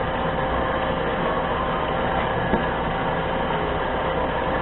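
Mini lathe running steadily, its motor giving an even hum with a faint steady whine, with one small tick about halfway through.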